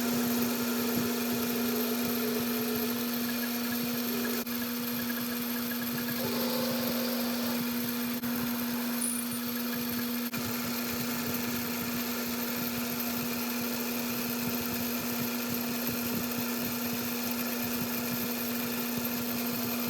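Metal lathe running at a steady speed while machining the end of a metal bar, a constant hum with a hiss of cutting noise.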